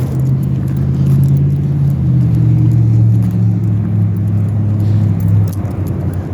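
A motor vehicle's engine running close by: a steady low hum that drops slightly in pitch about two seconds in and fades near the end.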